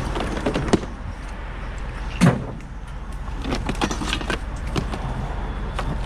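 A few knocks and clatters, the sharpest one about two seconds in, over a steady low engine rumble of a vehicle idling.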